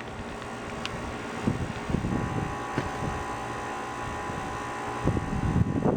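Daikin heat pump outdoor unit running in heat mode: a steady drone from the compressor and fan, with several steady tones. Low thumps and rustles come twice, about a second and a half in and near the end.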